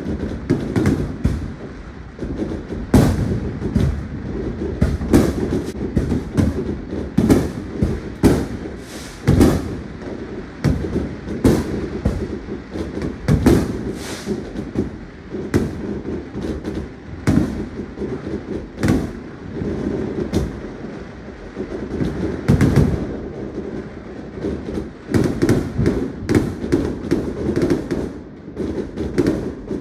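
Many fireworks going off at once: loud sharp bangs, often more than one a second, over a constant low din of overlapping more distant bangs.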